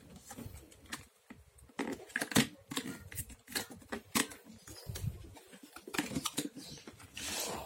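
Irregular light clicks and taps of a socket set's packaging and metal case being handled and opened, with a short rustle near the end.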